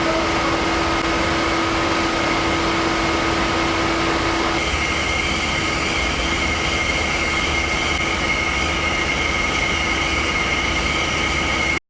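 Steady industrial drone of heat-and-power-plant machinery with several high whining tones held over it. The tones change about four and a half seconds in, and the sound cuts off abruptly just before the end.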